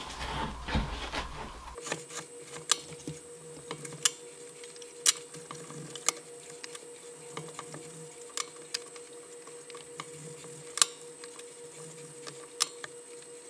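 Chef's knife chopping partially frozen salmon on a wooden cutting board: irregular sharp knocks of the blade hitting the board, roughly one every second or two, the loudest near the end, over a faint steady hum.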